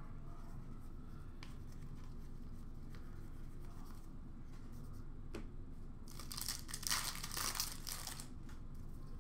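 A trading-card pack wrapper being torn open and crinkled in the hands, with a few faint taps of cards being handled. The rustling comes in bursts a bit past the middle.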